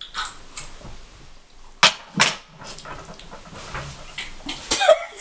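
Two people coughing and spluttering after swallowing dry chilli powder: a string of short, sharp coughs, the loudest two about two seconds in.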